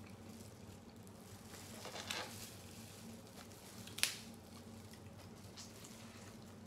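Snow crab legs being cracked apart by gloved hands: a brief crunchy crackle about two seconds in, then one sharp snap of shell about four seconds in, over a faint low hum.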